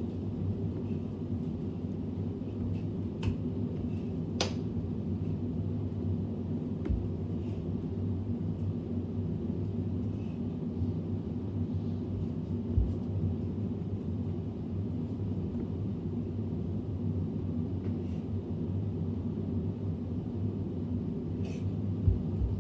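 A steady low hum in a small room, with a few scattered sharp clicks and low thumps from a person dancing without music: footfalls and hand movements.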